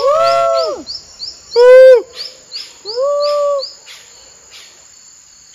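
Rainforest insects chirping steadily at about four to five pulses a second over a constant high whine. Three loud drawn-out calls, each under a second, break in during the first half, the loudest near the two-second mark.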